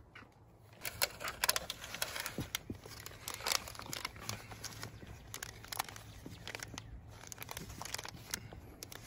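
Hands scooping and pressing a peat moss and compost seed-starting mix into a plastic seed tray inside a plastic tub: irregular scratchy rustling and crackling.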